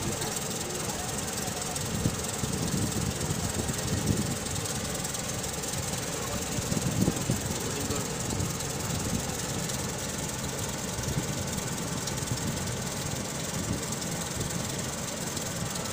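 Kubota half-feed combine harvester running steadily: an even hiss over a low, uneven mechanical rumble that swells briefly about halfway through.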